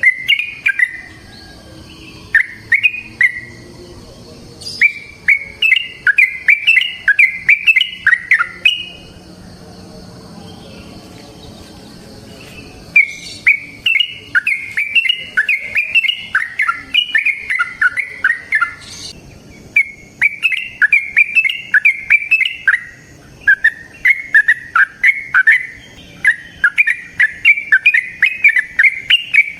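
Yellow-vented bulbul singing long runs of quick, repeated sweeping notes, about three a second. The runs last several seconds each, with short pauses between them and one longer pause near the middle.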